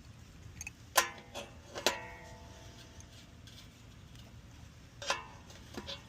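Four sharp metallic clinks, each ringing briefly: a tool knocking against the metal fan blade hub and motor shaft while the blade's set screw is tightened.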